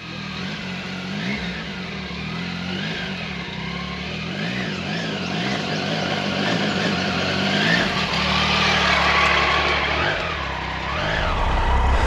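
Motorcycle engine revving up and down again and again as it rides toward the microphone, growing louder to a peak about eight seconds in.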